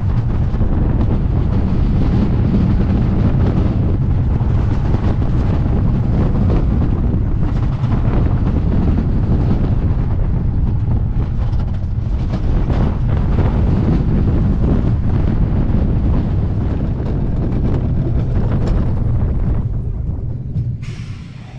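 Wooden roller coaster train running at speed, heard from a rider's seat: a steady rumble from the wheels on the wooden track under heavy wind rushing over the microphone. The noise falls away sharply near the end.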